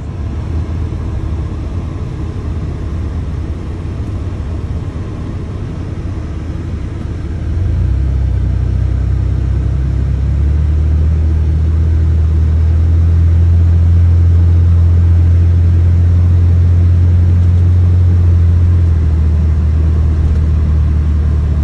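Low, steady rumble of a car driving, heard from inside the cabin. It grows louder and deeper about seven seconds in.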